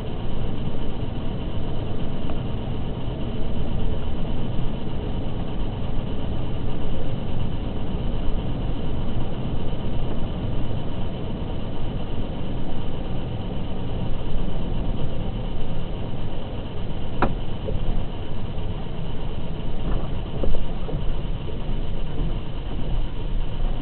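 A car driving, heard through a dashcam's microphone: a steady low rumble of engine and tyre noise. There is a sharp click about 17 seconds in and a fainter one about 3 seconds later.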